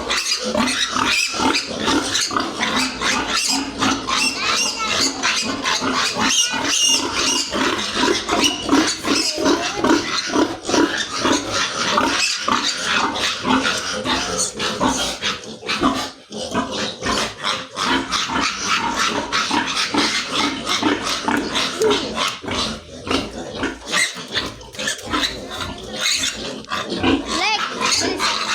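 Young piglets squealing in a dense, shrill, continuous chorus, easing only briefly about halfway through.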